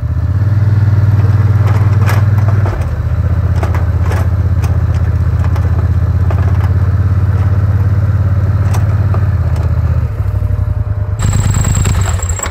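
Polaris Sportsman ATV engine running under load while pushing a V-plow through thin snow over a lawn, with scattered clicks, knocks and scraping from the blade. The engine note steps up and down about three seconds in and again around ten seconds.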